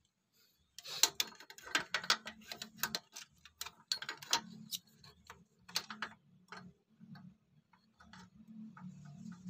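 Steel vernier caliper clicking and scraping against the aluminium crankcase of a Yamaha Mio as its jaws are slid and set in the cylinder opening to measure it: a quick run of sharp clicks that thins out after about five seconds, over a faint low hum.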